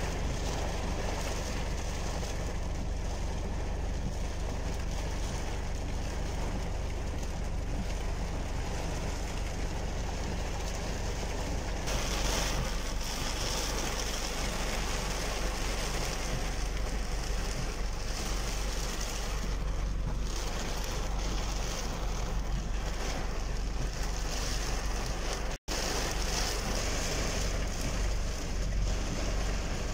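Heavy rain heard from inside a car's cabin: a steady rush of rain on the glass and body together with a low rumble of road and engine noise. The sound breaks off briefly near the end.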